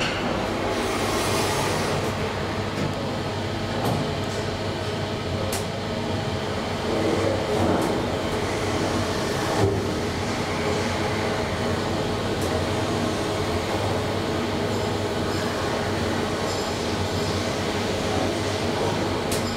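2012 SMW traction elevator car travelling in its shaft: a steady rumbling ride noise with a low hum and a few light clicks.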